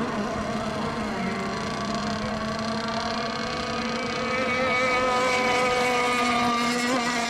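Small engine of a radio-controlled racing boat running on the water, a steady high whine whose pitch drifts slowly and rises a little about four seconds in.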